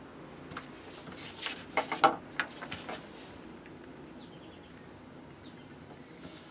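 Light clicks and taps with a short rustle of paper, from a small black fitting and a pencil handled on a pine board and a paper template; they come in a quick run, the loudest about two seconds in.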